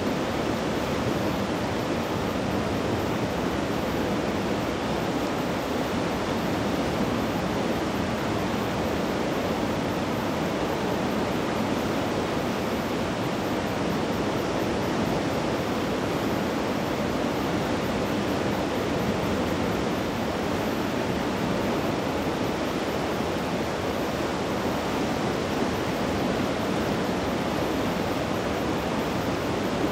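Steady rushing noise of a river in flood, even and unbroken throughout.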